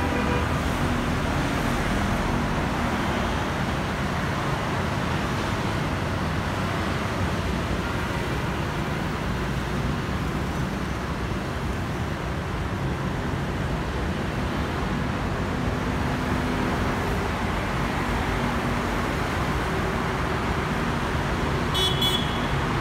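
Steady traffic on a wide multi-lane city road: a dense stream of motorbikes and cars passing, their engines and tyres blending into a constant wash of noise. A brief high-pitched sound cuts in near the end.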